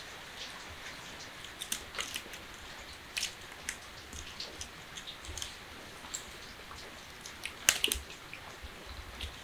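Irregular light clicks and scratching of kittens' claws and paws scrabbling on a woven bamboo basket, with a louder cluster of clicks about three-quarters of the way through.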